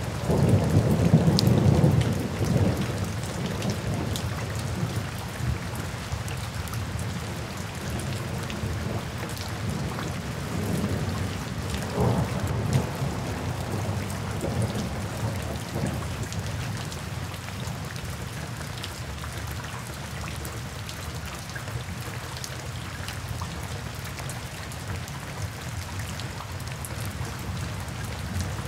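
Steady rain falling and splashing on a wet paved surface, with many separate drop ticks. Under it runs a low rumble that swells in the first couple of seconds and then settles to a steady level.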